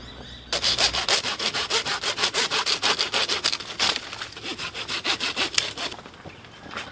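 Hand saw cutting through a tree branch in quick, even back-and-forth strokes, about four to five a second. The sawing starts about half a second in and stops near the end.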